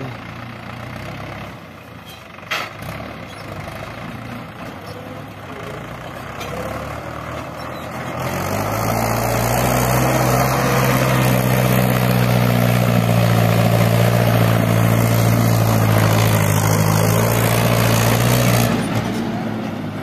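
Heavy diesel engine running at low revs with a single knock about two seconds in. About eight seconds in it is revved up and held steady at high revs under load for about ten seconds, then drops back.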